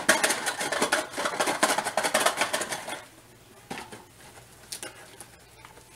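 Cardboard Happy Meal box shaken hard for about three seconds, a toy slinky rattling and knocking around inside it, followed by a couple of single knocks.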